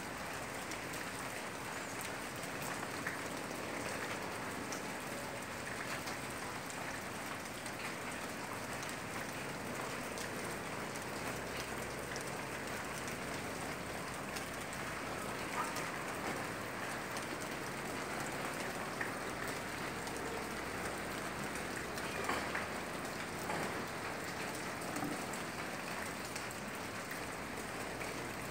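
Heavy rain falling in a steady hiss, with scattered louder drops and taps.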